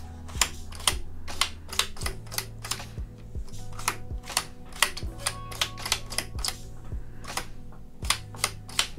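Tiles of a magnetic 7x7 sliding number puzzle clicking as they are pushed and snapped into place. An irregular run of sharp clicks comes about two to three a second.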